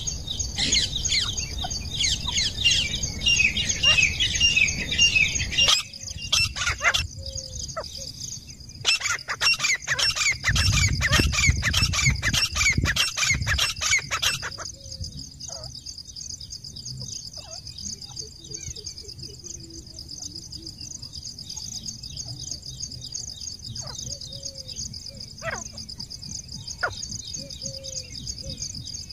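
Grey francolins calling, shrill calls repeated rapidly over and over for about the first half, with a short break in the middle. After that the calling stops, leaving a steady high-pitched insect drone and an occasional faint chirp.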